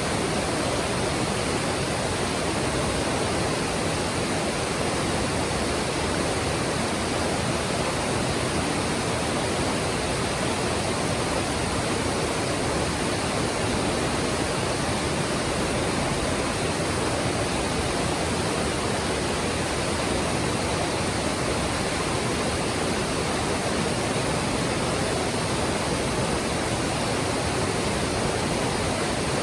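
Mountain stream water flowing and splashing over rocks: a steady, even rush with no change throughout.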